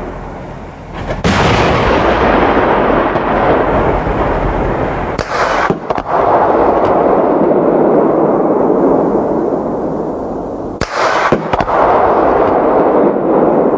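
CV9040's Bofors 40mm L70 autocannon firing APFSDS-T rounds: three loud reports about four to six seconds apart, each followed by a long rolling rumble.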